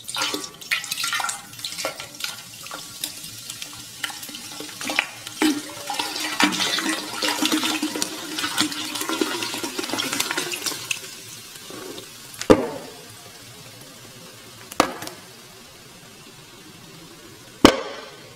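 Water splashing and spattering, with many irregular clicks and a hiss for about eleven seconds. Then three sharp single knocks with a short ring, two to three seconds apart.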